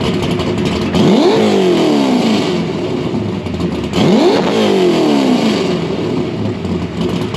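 461-cubic-inch Ford Windsor V8 idling through Dr. Gas boom tube mufflers, blipped twice: the revs climb quickly about a second in and again about four seconds in, each time falling back to idle over a second or so.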